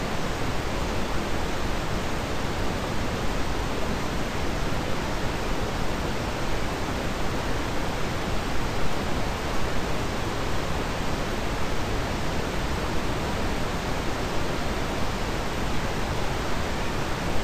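Steady, even hiss of noise spread across all pitches, unchanging throughout.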